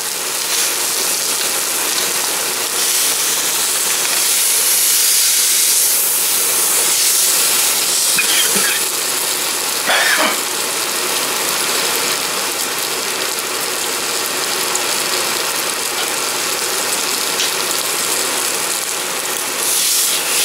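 Pork roast searing in very hot oil in a cast-iron skillet: a steady, crackling sizzle that flares louder for a moment about ten seconds in, when the roast is turned onto a fresh side.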